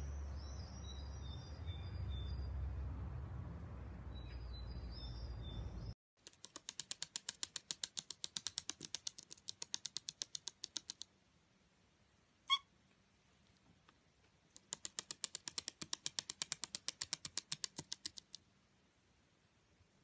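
White-bellied caique making quick runs of sharp clicks, about seven a second, on a wooden floor, with one short squeak between the two runs. Before it, a low rumble with small birds chirping.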